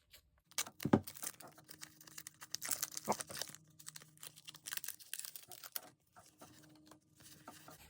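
Foil booster pack wrapper of Pokémon trading cards being torn open and crinkled, a run of irregular crackles and rustles.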